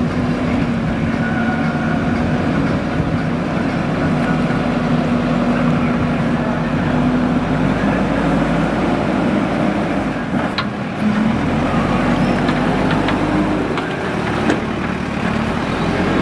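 Heavy machinery diesel engine running steadily at constant speed, with a couple of sharp knocks about ten and fourteen seconds in.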